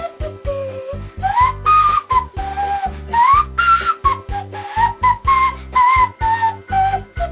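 A whistle-like melody played on a homemade wind instrument carved from root vegetables, its notes sliding up and down between pitches. It plays over a Yamaha PSR-8000 keyboard accompaniment with a bass line and a steady drum beat.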